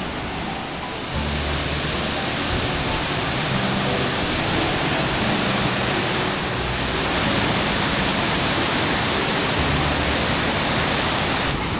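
Steady rush of water pouring down a waterfall, growing louder about a second in.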